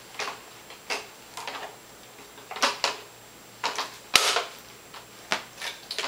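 Plastic clicks and knocks as the power cord is released from the cord hooks of a Kirby Sentria vacuum cleaner and laid down, with a sharp click about four seconds in the loudest.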